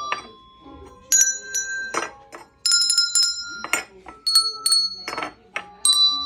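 Handbells being rung, four separate strikes, each a bright ringing tone that carries on briefly before the next, with short rustling or knocking sounds between the strikes.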